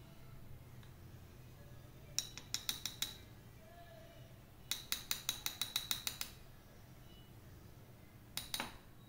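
A tiny spoon clinking rapidly against the rim and sides of a small ceramic bowl while flour and spices are mixed. There are three quick runs of light, ringing clinks: a short run, a longer run of about a dozen, and a couple near the end.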